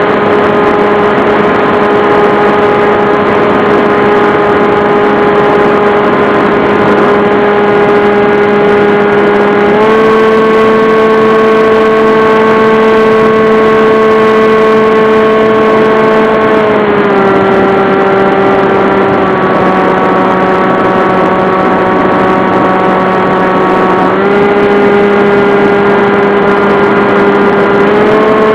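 Model airplane's motor and propeller picked up by the onboard camera: a loud, steady whine whose pitch steps up about ten seconds in, drops some seven seconds later, then steps up again twice near the end.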